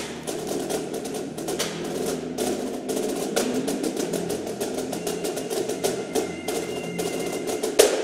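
Indoor percussion ensemble (drumline with front-ensemble mallet keyboards) playing: quick drum strokes over sustained pitched mallet notes, with a loud accented hit shortly before the end.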